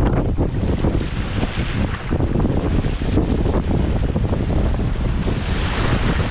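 Wind buffeting the microphone over ocean surf washing in, with the wash of a wave swelling louder about five seconds in.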